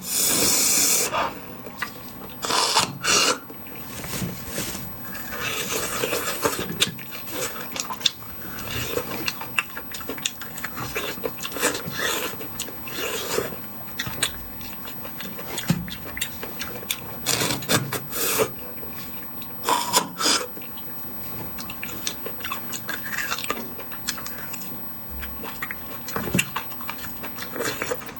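Close-miked eating of bone marrow: sucking and slurping marrow out of the bones, with many small clicks and scrapes of bone and utensils. A loud hissing slurp fills the first second, and shorter slurps recur throughout.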